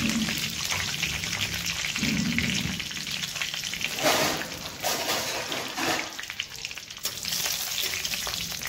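Whole spices (dried red chillies, bay leaves, cinnamon, cloves) sizzling and crackling in hot oil in a kadhai, with a few louder pops in the middle: the tempering (phoran) is being fried until it darkens and starts to burn. A metal spatula starts stirring it near the end.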